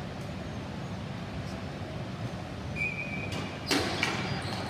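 Ball hockey faceoff: steady hall hum, a short squeak nearly three seconds in, then a sharp clack of sticks and ball a little later, with a second smaller clack right after.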